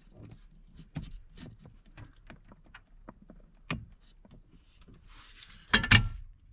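Hands working a test light probe into a plastic wiring connector under a truck's dash: scattered small clicks and rubbing of wires and plastic, with a louder scrape and clicks near the end.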